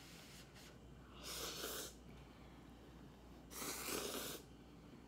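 Two long, noisy slurps of instant noodles, one about a second in and another past the middle, each lasting just under a second.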